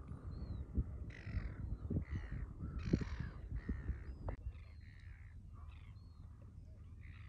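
Birds giving short, harsh calls over and over, several overlapping in the first few seconds and thinning out toward the end, over a low rumble.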